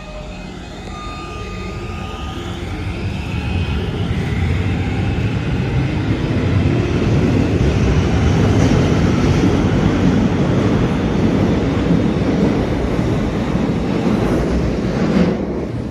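Helsinki metro train running past the platform. A rising whine is heard over the first few seconds, then a loud steady rumble of the wheels and cars going by. The sound cuts off suddenly near the end.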